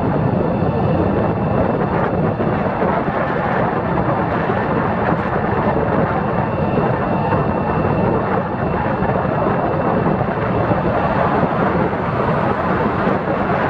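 Steady rush of wind over the microphone of a camera on a moving open scooter, mixed with the vehicle's road noise and a faint steady whine.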